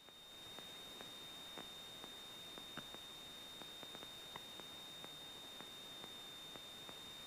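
Near silence on the radio and intercom audio between transmissions: a faint steady high-pitched whine under a light hiss, with scattered faint clicks.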